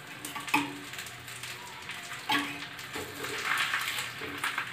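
Faint crackling hiss of a leftover roti heating on a hot tawa. Two sharp knocks fall about half a second in and just after two seconds.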